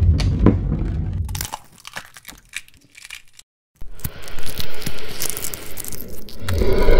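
Logo-animation sound effects of an eggshell cracking open: a low rumble, then a run of sharp cracks and crunches broken by a brief dead gap, and a steady buzzing hum that comes in near the end.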